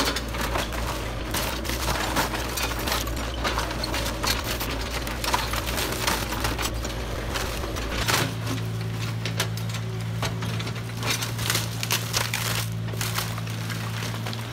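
Kubota KX040-4 mini excavator's diesel engine running while its bucket and claw grab and crush broken house timber, with frequent sharp cracks and clatters of splintering wood.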